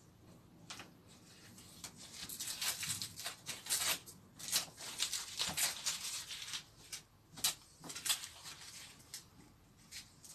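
Paper template being peeled by hand off a scroll-sawn MDF cut-out: faint, irregular rustling and tearing in short scrapes, with small pauses between pulls.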